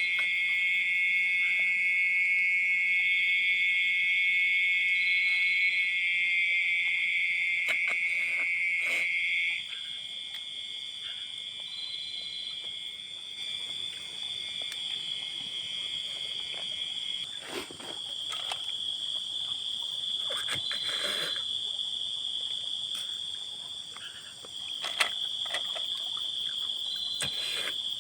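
Forest chorus of insects and frogs: steady, shrill, high-pitched calls. The louder, lower-pitched trill stops about a third of the way in, while a higher tone carries on. A few soft knocks and rustles come in the second half.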